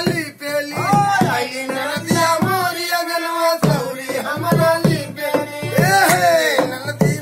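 Sohar folk song for a pawariya dance: a voice singing a wavering melody over steady hand-drum strokes.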